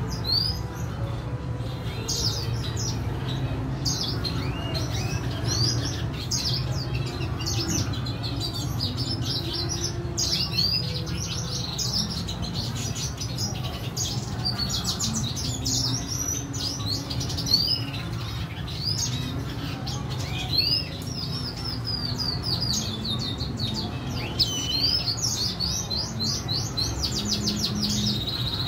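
Red siskins chirping and twittering almost without pause, many quick high chirps and short trills, over a steady low hum.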